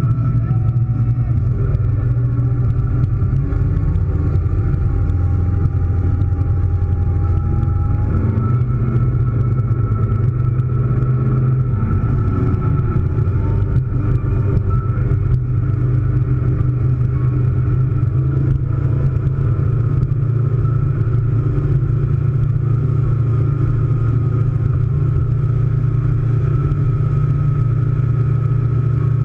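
Scarab powerboat's engine running steadily while the boat is underway, a loud, even low drone with no change in speed.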